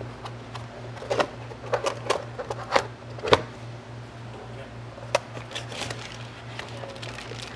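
Cardboard packaging being handled: a run of knocks, taps and rustles as the box flaps and cardboard insert are moved, the loudest a little over three seconds in and one more knock about five seconds in. A steady low hum sits underneath.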